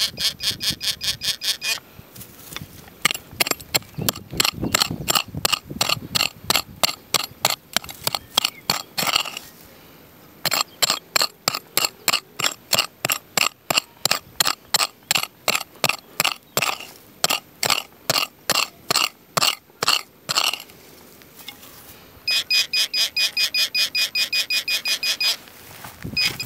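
Metal detector beeping in quick, evenly spaced pulses, about four a second, as it is swept over the ground. The beeping stops briefly twice.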